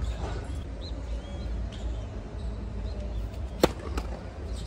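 Tennis ball struck hard with a racket on a forehand: one sharp, loud crack about three and a half seconds in, followed closely by a fainter click.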